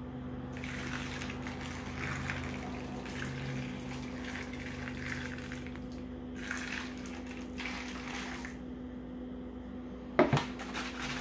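Water poured from a plastic tub onto soaked grain in a foil pan, in two pours with a short break between them. A single knock near the end.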